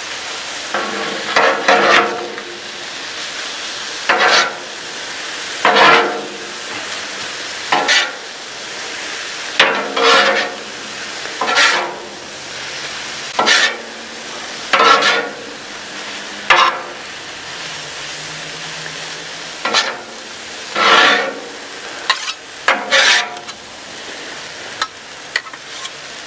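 Chicken, peppers, onions and mushrooms sizzling on a Blackstone steel flat-top griddle, with two metal spatulas scraping and clacking on the steel every second or two as the food is tossed and mixed.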